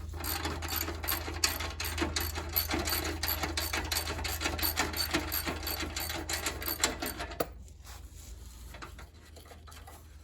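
Socket ratchet clicking rapidly while the lawn tractor's muffler bolts are loosened. The clicking stops suddenly about seven and a half seconds in.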